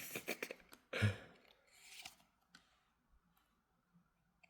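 Soft clicks and rustling of Yu-Gi-Oh trading cards being handled, with a short breathy exhale about a second in, then only faint light ticks.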